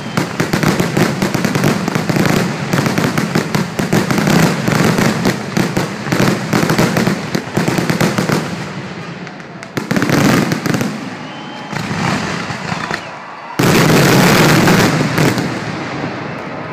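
Fireworks finale: a dense, rapid barrage of shell bursts and crackling that thins out after about eight seconds, then one last loud volley near the end.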